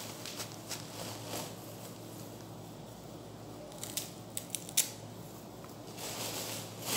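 Scissors snipping mint stems, a few quick sharp snips about four to five seconds in, with the rustle of the leafy stems being handled.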